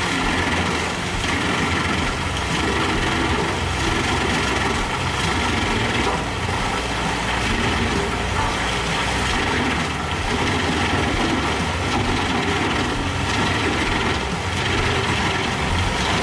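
Tractor-powered wood chipper running with a steady engine drone.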